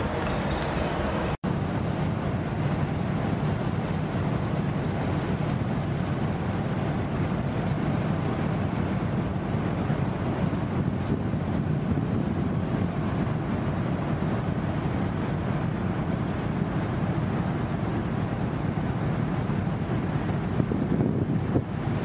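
Steady low rumble on a cruise ship's open deck: the ship's machinery running, with wind on the microphone. It drops out for an instant about a second and a half in.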